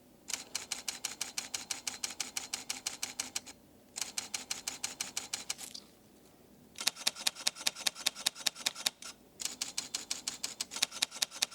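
Fujifilm GFX100 II medium-format camera shutter firing in continuous bursts, about eight crisp clicks a second. There are four bursts with short pauses between them, and the last two are louder.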